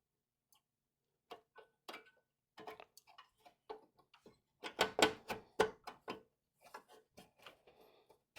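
PCIe USB expansion card being slid into a motherboard slot and the case's expansion bracket: irregular small plastic and metal clicks and knocks as it is lined up, the loudest cluster about five seconds in.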